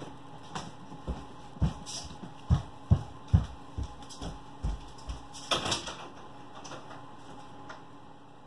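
Footsteps walking away across the floor: low thuds about two a second that grow fainter after about three and a half seconds, with a short scrape about five and a half seconds in.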